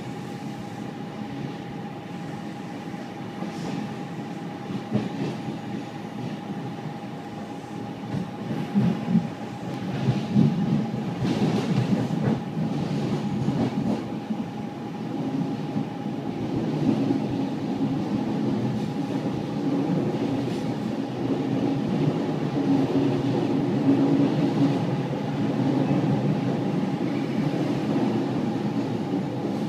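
Electric commuter train running on the tracks, heard from inside the carriage: a steady rumble with a constant high hum over it and occasional clacks, growing louder about ten seconds in.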